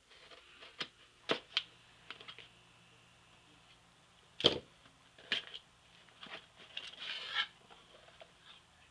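Box cutter cutting into the bottom of a cardboard shipping box: a series of sharp clicks and knocks, the loudest about halfway through, and a stretch of scratchy cutting and scraping near the end.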